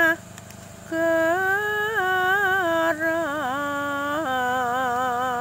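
A single unaccompanied voice slowly singing a Javanese chant on long held, wavering notes, with the word 'nagara'. It breaks off briefly near the start, then sings on, the pitch stepping down about three seconds in and settling on a lower held note.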